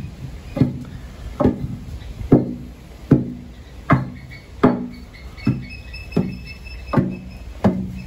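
Pestle pounding rice into flour in a mortar: about eleven steady, evenly spaced thuds, a little faster than one a second, each with a short low ring.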